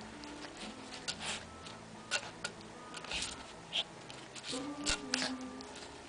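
Irregular short rustling bursts and sharp light clicks, scattered unevenly, over faint steady low tones.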